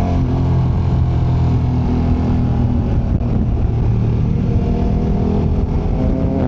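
KTM 1290 Super Adventure's V-twin engine running steadily under throttle on an uphill climb, with the revs climbing slightly near the end.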